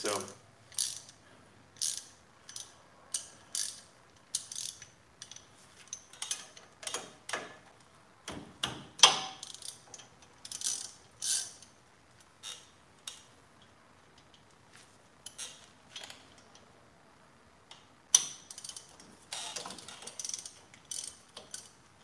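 Hand socket ratchet clicking in short strokes as bolts are backed out at a truck's front brake and hub assembly. The runs of clicks come about a second apart, pause for a few seconds past the middle, then come faster near the end.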